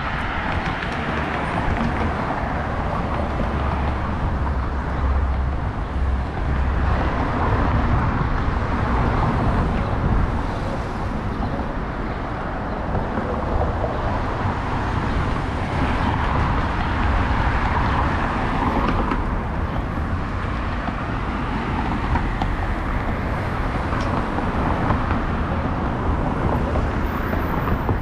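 Street traffic: cars passing, the sound swelling and fading a few times over a steady low rumble.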